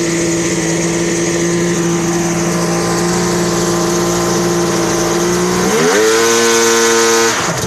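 Yamaha GP1200R jet ski's freshly rebuilt two-stroke triple running on a first test run. It idles steadily, then is revved sharply about six seconds in, held high for a second and a half, and dropped back near the end.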